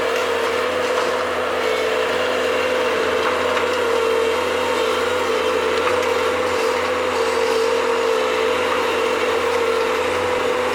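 Bobcat machine running steadily while digging, its engine and hydraulics giving a constant, slightly wavering whine.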